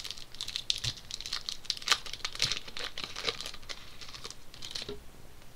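Crinkling and tearing of a hockey-card pack wrapper being opened and handled, a dense crackle of rustles that stops about five seconds in.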